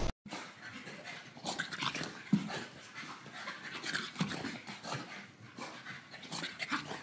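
A dog panting in quick, irregular breaths, with a soft knock about two and a half seconds in.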